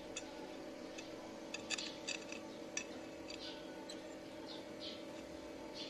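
Light metallic clinks as a short round steel pin is fitted into the drilled hole of a steel flat bar, a cluster of sharp ticks around the middle, over a steady low hum and a few faint high chirps.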